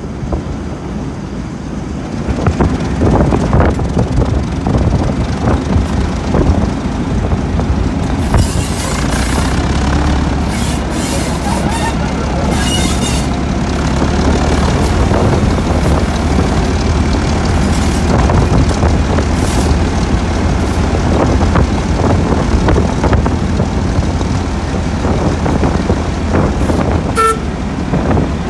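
British Rail Class 08 diesel shunter's English Electric six-cylinder engine running with a deep steady rumble that grows heavier about eight seconds in as the locomotive works harder. Short hisses come between about eight and thirteen seconds, and a brief horn toot sounds near the end.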